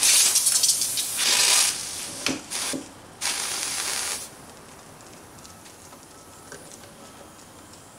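Steam hissing from a hand-held steam nozzle in several bursts of about a second each, stopping about four seconds in. The steam is being forced into the guitar's neck joint to warm and soften the old glue for a neck reset.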